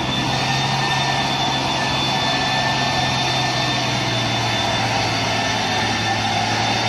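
Engine of a Mitsubishi Fuso tanker truck running steadily as the truck crawls through mud, a constant low hum under a wide noisy rumble.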